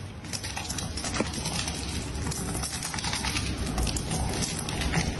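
A cat and a white duck eating dry pet food from a metal plate: a dense run of quick, irregular clicks and crunches as bill and teeth work at the kibble on the metal.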